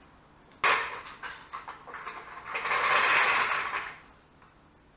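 A metal trolley jack being fetched and handled: a sudden clatter about half a second in, a few sharp knocks, then about a second of scraping noise with a thin high ring.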